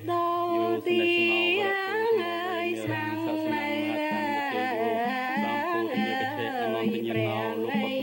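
Solo voice singing a Cambodian classical dance-drama song: a slow, ornamented line of long held notes that waver and glide, over a low steady tone.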